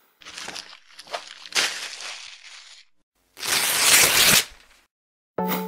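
Paper crumpling and tearing sound effect for a page-peel logo animation, followed by a louder burst of noise about a second long. Electronic music starts just before the end.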